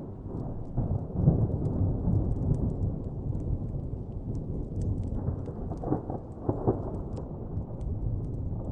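Distant thunder rolling in long low rumbles, swelling about a second in and again around six to seven seconds, with faint crackling of a fire over it.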